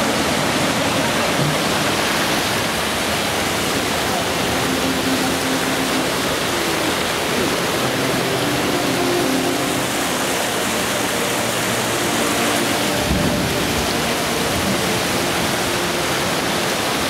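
Fountain jets splashing into a stone memorial pool: a steady, even rush of falling water.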